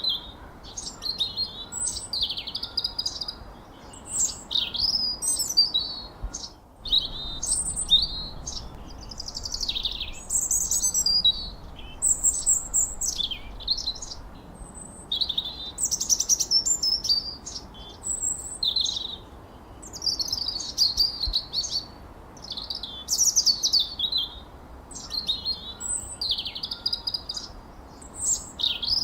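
Songbirds chirping and whistling in quick, overlapping phrases, with a faint steady background hiss. All sound breaks off for a moment about seven seconds in.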